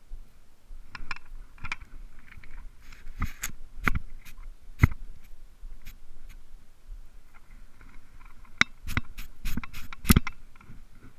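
Handling noise: scattered scrapes and sharp knocks as a gloved hand and sleeve brush against the camera while a spinning rod and reel are worked, with the loudest knocks about five seconds in and near the end.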